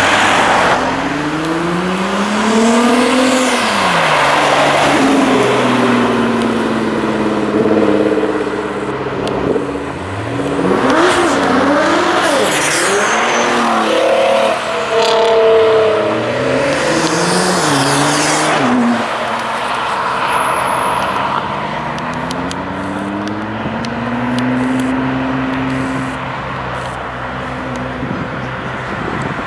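Several sports cars, Nissan GT-Rs among them, accelerating hard away one after another. Their engine notes rise in pitch through the gears and dip at each upshift.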